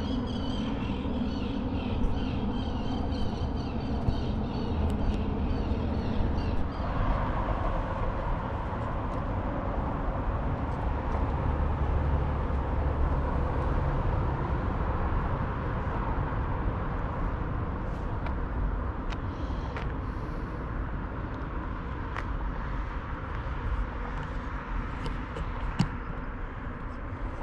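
Steady outdoor background noise with a low, uneven rumble, and a few faint clicks in the second half.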